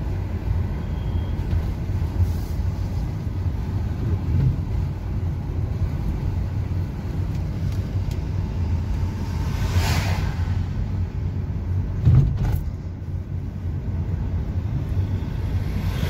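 Car driving along a road, heard from inside the cabin: a steady low engine and road rumble. About ten seconds in, another vehicle rushes past in a brief swell, and a thump follows about two seconds later.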